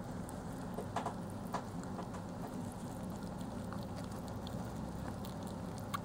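Several Syrian hamsters nibbling from a shared pile of food on newspaper: scattered small chewing clicks and paper rustles over a steady low hum.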